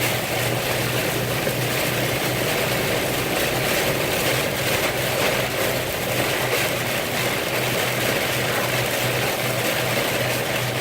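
Steady noise inside a moving car in heavy rain: rain and tyres on the wet road with a low, even engine hum.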